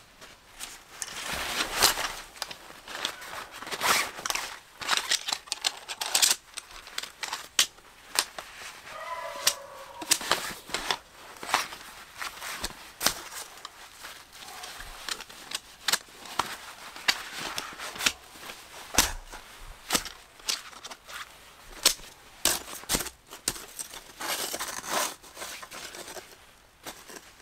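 Fury Gravity folding camp stools being pulled out of nylon drawstring sacks and opened: the fabric rustles and the metal frames click and knock sharply as the legs spread.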